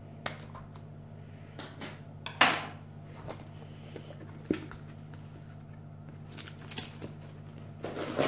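Scissors snipping a packaging tie, then a cardboard blister card and a plastic bike-lock mounting bracket being handled: scattered short clicks and rustles over a steady low hum.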